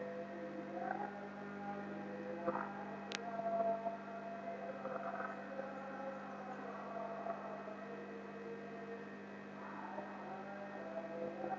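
Steady low electrical hum, like mains hum picked up by the recording, with faint wavering background tones and a single sharp click about three seconds in.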